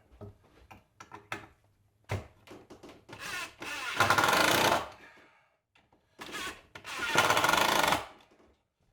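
Power drill/driver running in two bursts of about two seconds each, driving screws to fasten a wooden hole-saw guide block, with a few light knocks of handling before.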